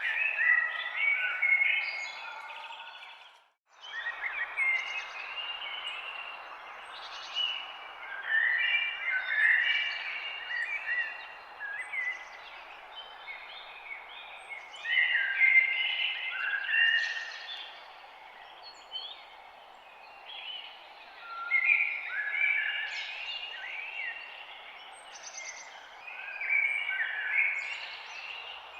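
Several songbirds chirping and warbling over a steady background hiss of forest ambience. The sound cuts out almost completely for a moment about three and a half seconds in, then resumes.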